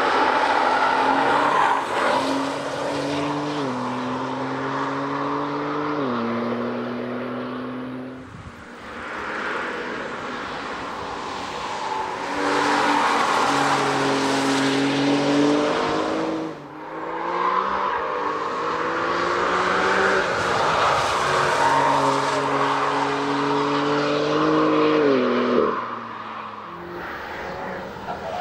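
2021 BMW M4 Coupe prototype's twin-turbo straight-six accelerating hard past the track several times. The engine note climbs through each gear and drops sharply at quick upshifts.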